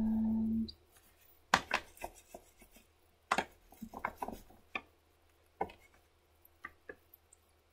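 A short steady electric buzz cuts off about half a second in, then a string of irregular clicks and knocks as hard drawing tools are handled and set down on a tabletop.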